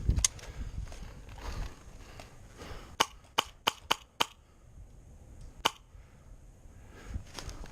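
Airsoft gun firing: five sharp pops in quick succession, about four a second, then a single pop about a second and a half later, over light rustling of the player's gear.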